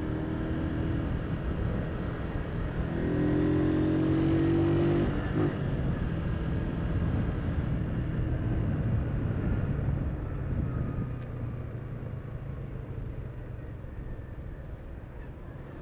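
Honda CG 150 motorcycle's single-cylinder four-stroke engine running as it is ridden. Its pitch and level rise slightly about three seconds in as it accelerates, it breaks off briefly a couple of seconds later, and it then runs on steadily and eases off toward the end.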